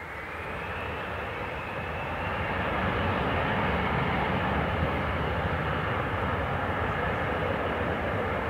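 Bombardier CRJ regional jet's two rear-mounted GE CF34 turbofans spooling up to takeoff thrust. A whine rises in pitch and levels off about a second in, while a jet rumble swells over the first three seconds and then holds steady and loud.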